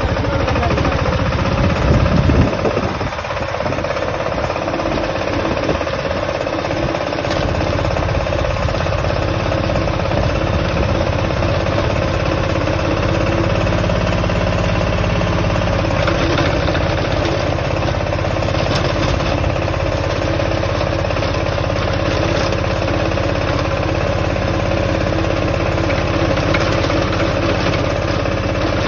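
Massey Ferguson 5118 compact tractor's engine running steadily under load as it drives a rotavator tilling soil. There is a brief louder surge about two seconds in.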